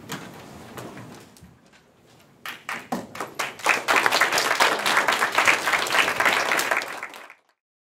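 Small audience applauding. A few scattered claps come first, then steady dense clapping for about three and a half seconds, which cuts off suddenly.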